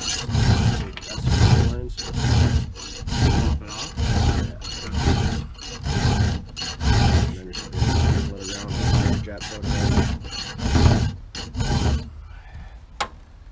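Chainsaw chain being sharpened by hand with a round file: steady rasping strokes, about one every three quarters of a second. The filing stops near the end, and a single click follows.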